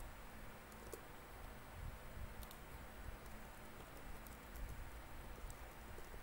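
Faint typing on a computer keyboard: scattered, unevenly spaced keystroke clicks over a low background hum.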